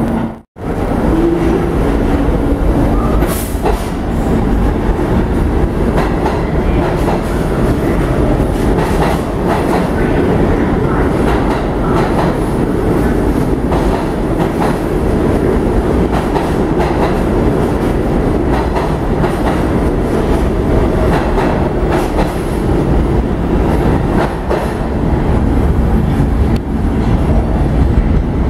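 A New York City subway A train rolling through an underground station: a steady rumble from the wheels and motors, with wheels clicking over the rail joints. The sound cuts out briefly about half a second in.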